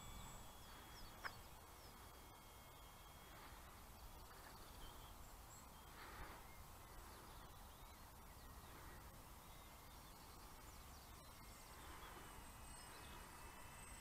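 Near silence: faint outdoor ambience with a few distant bird calls and a single sharp click about a second in.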